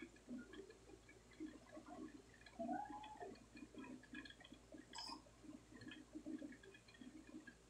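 Near silence, with faint scattered crackles and small ticks from soldering wires onto an amplifier circuit board. A brief, faint squeak-like tone rises and falls about three seconds in.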